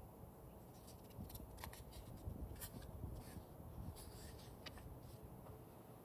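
Paperback book page being handled and turned: faint, crisp paper crackles and rustles from about one to five seconds in, over a low steady rumble.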